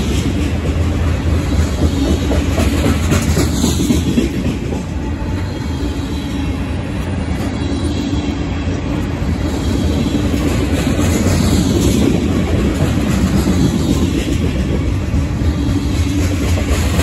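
Covered hopper cars of a freight train rolling past close by: a steady rumble of steel wheels on the rails.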